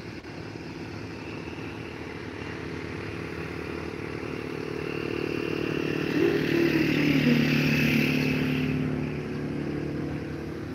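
A motorcycle engine passing close by: it grows louder, peaks about two-thirds of the way through with its pitch dropping as it goes past, then fades.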